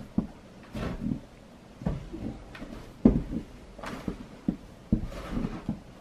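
Snow shovel working through deep snow: a series of irregular scrapes and thumps of the blade, roughly one every second.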